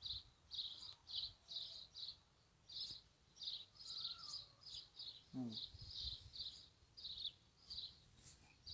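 A small bird chirping over and over, faint and high-pitched, about two to three short chirps a second.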